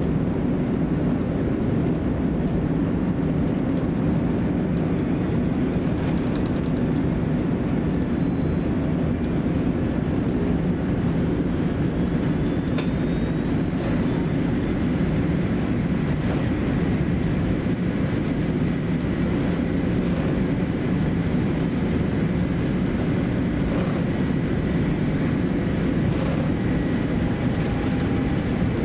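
Cabin noise inside a Boeing 787-10 taxiing: a steady low rumble and hum from the engines at taxi power and the cabin air, with faint thin high whines above it.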